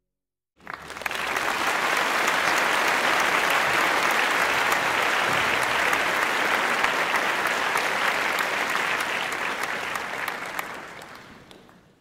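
Applause from a crowd, with many fine claps, coming in suddenly about half a second in, holding steady, then fading out near the end.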